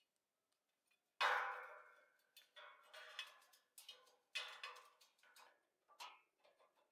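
A string of irregular knocks and clanks, each ringing briefly before it fades, the loudest about a second in.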